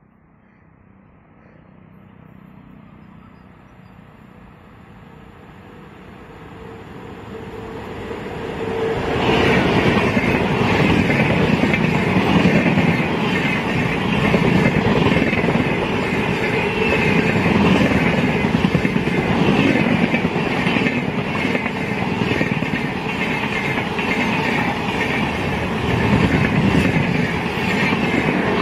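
WAP4 electric locomotive hauling an express passenger train, approaching and passing at speed. Over the first nine seconds the rumble grows, with a steady tone in it. Then comes a sudden loud rush as the locomotive goes by, followed by the coaches' wheels clattering continuously over the track.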